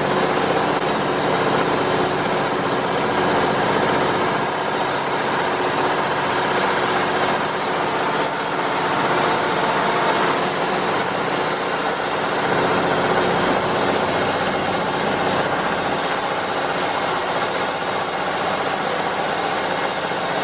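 Engine of a Bangkok canal passenger boat running steadily at speed, a constant drone heard on board, over the rush of water and wind.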